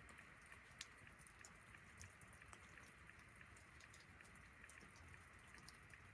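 Faint light rain pattering, with a soft hiss and small scattered drop ticks.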